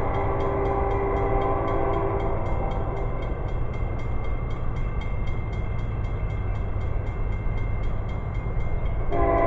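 Approaching train's horn sounding a long chord that stops a couple of seconds in and starts again near the end, over a steady low rumble of the oncoming train.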